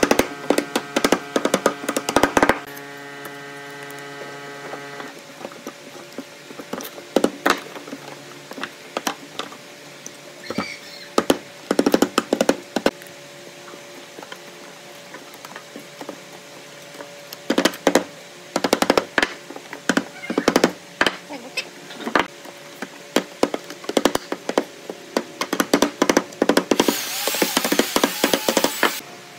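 Irregular knocks and taps of tools on wood, coming in clusters. A steady electrical hum runs for the first five seconds, and a short burst of hissing noise comes near the end.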